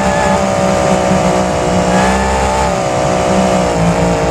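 A vehicle engine running loudly and steadily, with its pitch sinking slightly near the end. It is most likely an engine sound effect laid over the toy monster truck.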